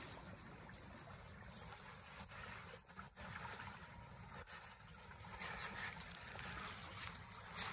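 Shallow rocky creek running: a faint, steady rush of water.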